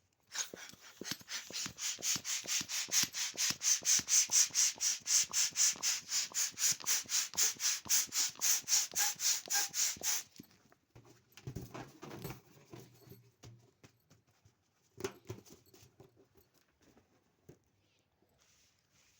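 Balloon pump pushing air in rapid, even hissing puffs, about four a second, for about ten seconds before stopping. After it, a few brief rubbing sounds.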